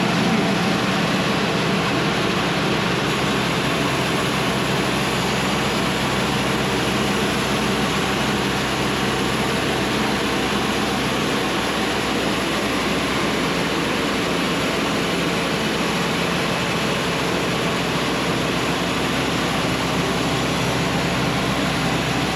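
Diesel-powered Cook's AC-36 band sawmill running revved up, its bandsaw blade cutting a board off the log as the head travels along it; a steady, even engine-and-saw noise.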